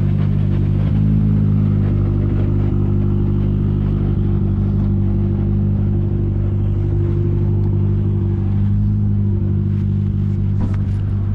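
Car engine idling steadily, loud and close, its low note holding an even pitch.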